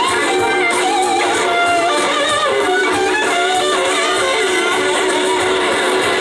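Live blues-rock band playing, led by an electric slide guitar whose notes glide up and down between held pitches, over drums, bass guitar and a second electric guitar.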